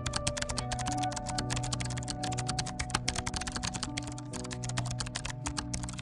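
Rapid computer keyboard typing clicks, a typing sound effect, over background music with held notes.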